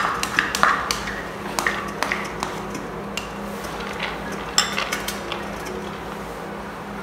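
A spoon scraping and tapping as soaked, hulled mung beans are spread in an electric rice cooker's steamer basket, with clinks of a porcelain bowl set down on a metal tray. The clicks are scattered and thickest in the first second, with the loudest clink about four and a half seconds in.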